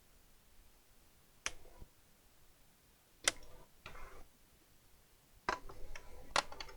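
A handful of sharp plastic-and-metal clicks spaced a second or two apart, with short scraping between them: hands working on an open laptop, pulling and reseating its RAM module.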